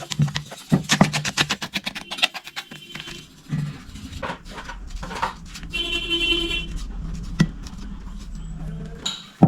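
A rapid run of sharp clicks or taps for about three seconds, then a low steady hum with a brief horn-like tone about six seconds in.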